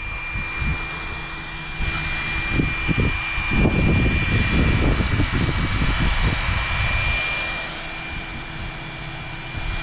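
Low, uneven rumbling of wind on the camera microphone, strongest in the middle, over a steady high-pitched whine that fades out near the end.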